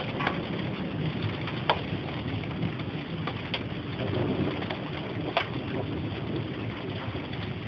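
Steady rain during a thunderstorm, with scattered sharp clicks of single drops striking a surface close by.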